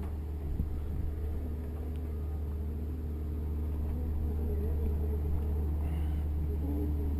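Boat engines idling at low speed: a steady low rumble with a slowly wavering engine hum.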